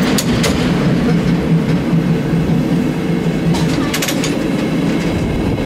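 San Francisco cable car in motion, heard from inside the car: a steady rumble of its wheels on the rails, with a few sharp clanks shortly after the start and a cluster of them about four seconds in.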